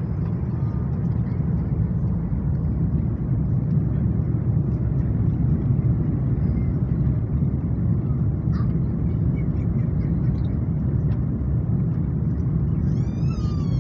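Steady low rumble of an Airbus A330's cabin noise, the engines and airflow heard from inside the passenger cabin.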